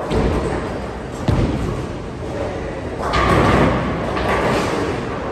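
Bowling alley: bowling balls thud onto the lane and rumble as they roll, with a loud crash of pins about three seconds in.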